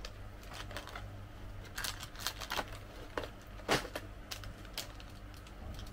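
Crinkling and clicking of a chocolate-coated polvoron's wrapper being handled and unwrapped: a string of small, irregular crackles.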